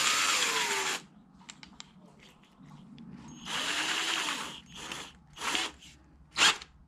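Cordless drill with a tiny drill bit run in short bursts, its motor pitch rising as it spins up and falling as it winds down: two runs of about a second each, then three brief blips near the end.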